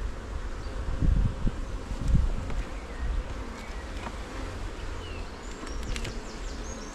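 Honeybee colony buzzing steadily from an open hive during a frame inspection, with two low bumps about one and two seconds in.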